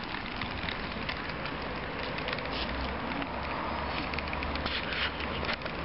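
Crackling, gritty noise of a child's bicycle tyres rolling over a rough tarmac path, with wind rumbling on the microphone from about halfway through.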